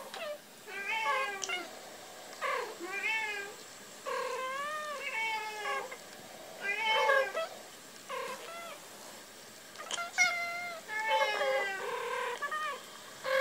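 Long-haired tortoiseshell-and-white cat meowing over and over, about a dozen short meows, each rising and falling in pitch.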